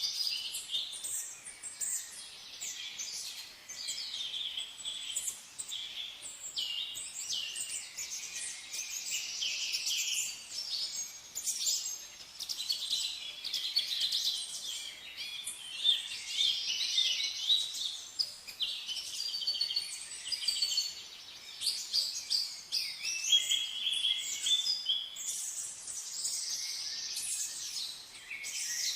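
A chorus of several songbirds chirping and trilling at once, many short overlapping calls.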